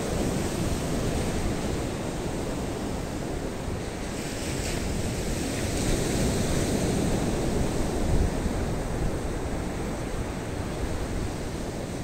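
Surf from a rough sea breaking on the shore, a steady wash of waves, with wind rumbling on the microphone.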